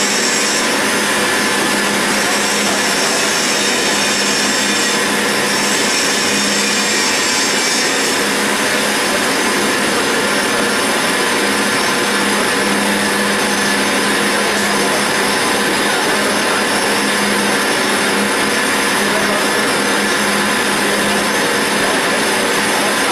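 CNC roll turning lathe cutting grooves in a steel roll: a loud, steady rushing machine noise with a constant low hum.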